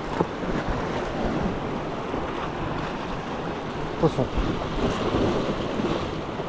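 Sea waves washing against shoreline rocks, with wind buffeting the microphone.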